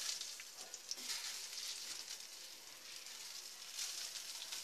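Washed, drained rice dropped by hand into hot mustard oil in a steel pan, sizzling with faint crackles as the wet grains fry. The sizzle eases mid-way and picks up again near the end.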